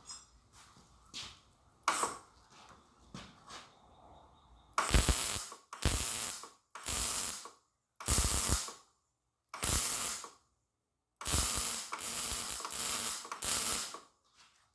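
Electric arc from metal fabrication, struck in about nine short bursts from about five seconds in, each under a second: a harsh crackling hiss, with a few faint clicks before it.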